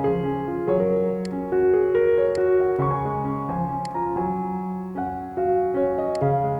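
Instrumental background music: a melody of held notes over a low bass line, with a few faint ticks.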